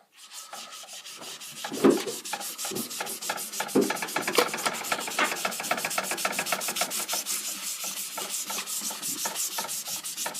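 Magic Eraser melamine sponge with rubbing alcohol scrubbed fast back and forth on the surface of a pinball machine, about seven strokes a second, to clean off grime.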